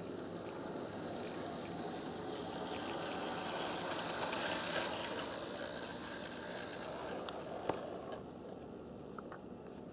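HO-scale brass model steam locomotive, a Kawai New York Central 4-6-2 Pacific, running on track: a steady mechanical rattle of its motor, gearing and wheels. It grows louder as the engine passes close about four to five seconds in and fades after about eight seconds, with one sharp click just before that.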